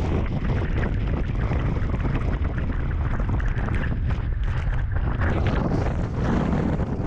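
Wind buffeting the microphone of a camera on a moving motorcycle, with the motorcycle's running and tyre noise on a wet road underneath.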